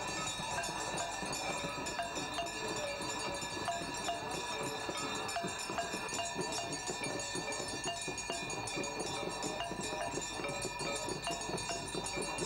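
Many bells ringing together throughout an aarti ritual at the Ganges, with a steady clanging rhythm of repeated strikes over held ringing tones.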